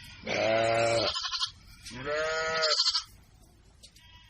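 A young goat (kid) bleating twice, two long calls of about a second each.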